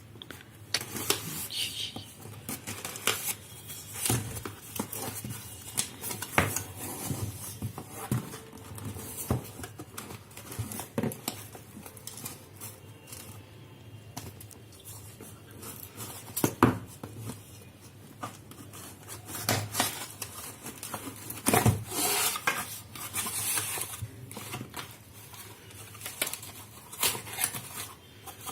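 A smartphone retail box and its packaging being handled and opened by hand: irregular clicks, taps and rustling, with a sharper knock now and then.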